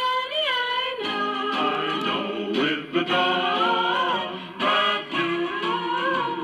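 A vocal record playing through the small speaker of a 1955 Philco TPA-1 all-transistor portable record player: a sung melody over instrumental accompaniment.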